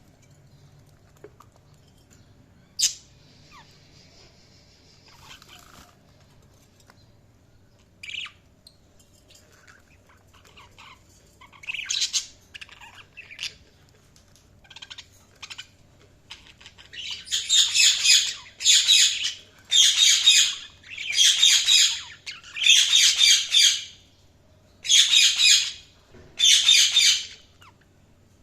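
Budgerigars calling: scattered short chirps at first, then from about halfway a run of loud, harsh squawks, each about a second long, coming a little more often than one every second and a half.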